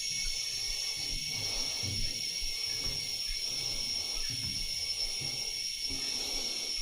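Rainforest insect chorus, a steady high-pitched buzzing drone without a break, with soft low thuds recurring irregularly beneath it.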